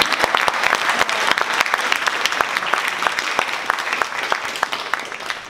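Theatre audience applauding at the end of a scene during a blackout, a dense patter of many hands clapping that begins to die away near the end.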